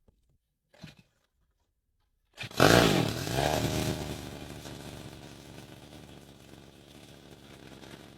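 A restored 109 cc chainsaw engine from 1983 starts about two and a half seconds in, revs briefly, then settles to a steadier, quieter run.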